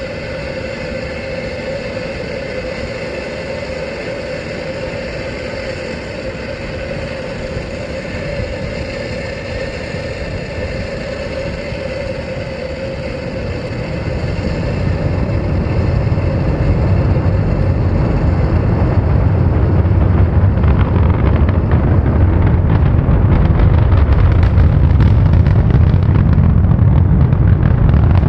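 Falcon 9 first stage's nine Merlin engines heard from a distance during liftoff: a steady hiss at first, then about halfway through a deep rumble with crackle builds in and grows louder as the launch sound arrives.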